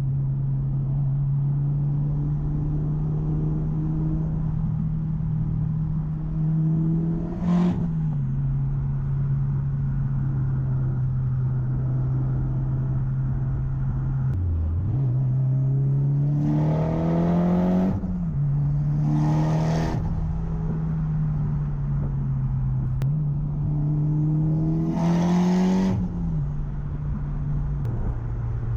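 Mitsubishi Lancer Evolution X GSR's turbocharged 4B11T four-cylinder engine pulling under a steady load, then revving up hard three times. Each time the pitch rises and falls off at a gear change, with a brief rush of hissing air near the top.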